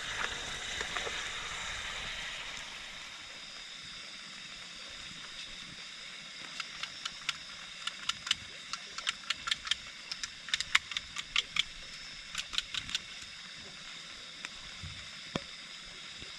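Steady hiss of water. Through the middle stretch comes a run of sharp, irregular clicks, several a second for about seven seconds, with a last couple of clicks near the end.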